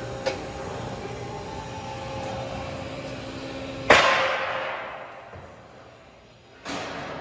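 Sharp metal clangs, likely steel stock being handled in a steel yard. A small knock comes just after the start. A loud clang about four seconds in rings and dies away over a couple of seconds, and another clang comes near the end.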